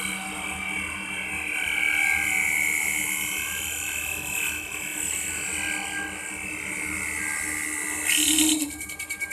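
CNC wood lathe running, a steady mechanical whine with several held tones, then a short, louder burst of hiss with rapid pulsing near the end.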